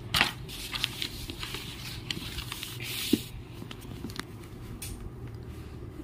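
Paper workbook pages being turned and handled: rustling with light taps, the longest rustle about three seconds in.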